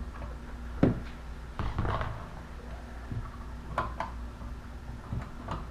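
A few scattered light clicks and knocks as the old dimmer switch is handled and pulled out of the wall box, over a steady low hum.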